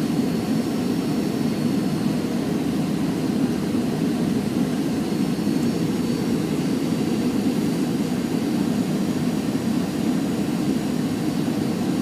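Steady cabin noise inside a Boeing 737 airliner on final approach: a constant low rush of airflow and jet engine noise, with a faint high whine over it.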